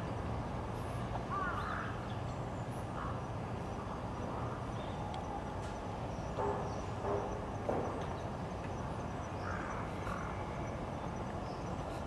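A crow caws three times in quick succession in the middle, among a few other brief bird calls and faint high chirps, over a steady low hum of distant city traffic.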